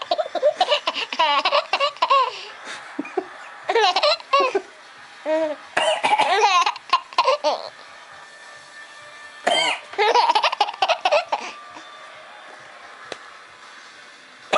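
Baby laughing in high, squealing bursts of belly laughs, about five bouts with short pauses between them, set off by an adult's coughing.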